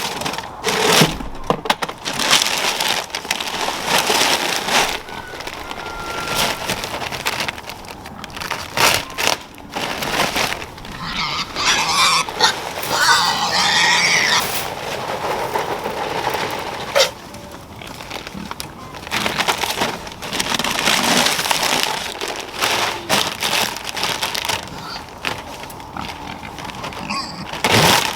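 Hungry pigs grunting while they eat at a freshly filled feeder, with irregular crunching and crackling of dry feed.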